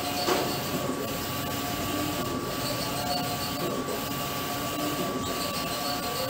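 Wide-format inkjet printer running, its print-head carriage shuttling back and forth across the media in a cycle that repeats about every one and a half seconds, over a steady hum with a constant high whine.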